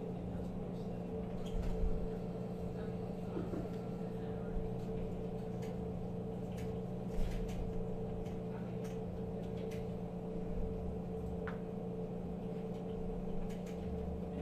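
Steady background hum with scattered faint clicks and taps of a Phillips screwdriver driving small screws back into a receipt printer's housing.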